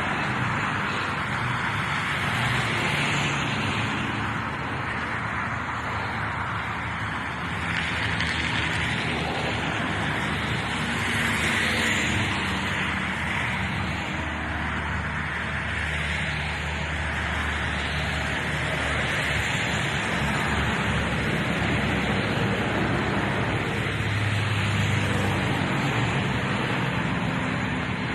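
Steady engine roar with a low hum underneath, holding an even level with no clear swell or fade.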